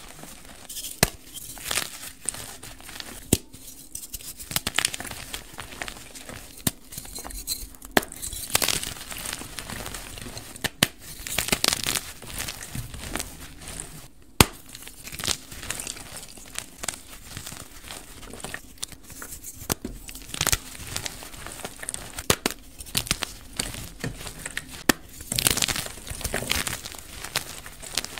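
Blocks of dyed gym chalk being crushed and crumbled between bare hands: powdery crunching and crumbling, with frequent sharp crackles as pieces break apart.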